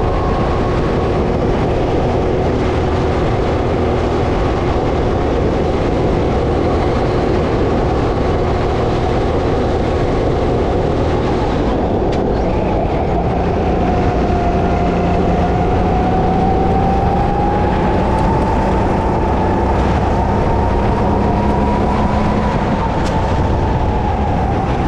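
Go-kart engine running at racing speed, heard from on board over a dense low rumble of wind and chassis vibration. Its pitch drops about halfway through, then climbs steadily as the kart picks up speed again.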